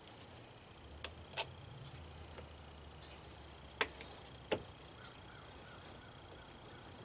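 Four short, sharp clicks in two pairs from hand tools knocking on the shift linkage of an Arctic Cat 250 ATV transmission while its linkage bolt is worked loose.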